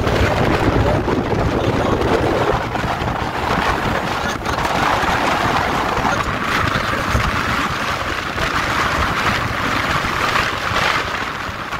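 Wind rushing over a phone microphone on a moving motorbike, mixed with the bike's engine and tyre noise as a steady low rumble.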